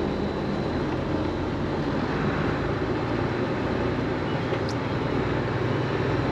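Tractor diesel engine running steadily under way, with a constant low hum.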